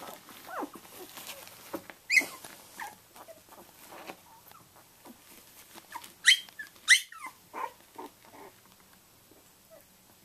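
12-day-old Samoyed puppies squeaking and whimpering, with sharp high squeals about two seconds in and twice more close together near seven seconds, between smaller squeaks and grunts.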